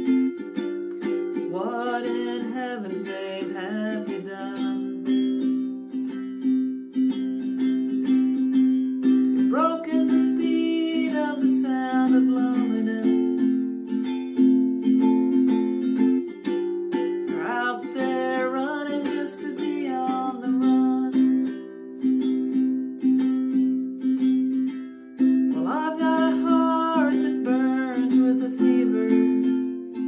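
A four-string ukulele strummed steadily in chords, with a solo voice singing four phrases over it, about eight seconds apart.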